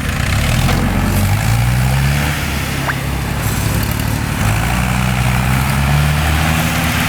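Force tractor's diesel engine working a front loader, its engine speed rising and falling twice as the loader is worked.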